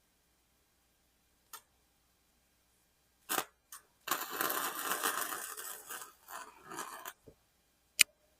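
Wire-feed welder arcing: a couple of brief sputters of arc, then a crackling weld bead of about three seconds, and a sharp click near the end.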